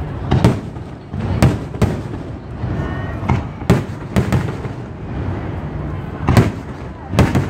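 Aerial fireworks bursting: about eight sharp bangs at uneven intervals, the loudest near the end, over a steady low rumble.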